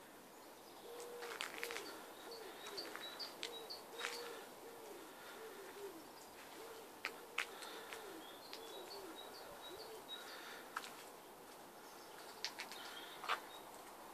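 A pigeon cooing in repeated low phrases, with small birds chirping faintly higher up. A few sharp clicks stand out, the loudest near the end.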